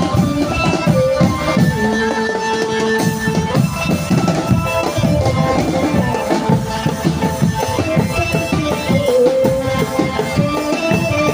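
Drumband playing live: snare, tenor and bass drums beating a fast, dense rhythm, with a melody in long held notes over it.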